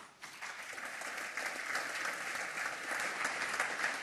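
Audience applauding, many hands clapping; it starts just after the talk ends, builds up within about half a second and then holds steady.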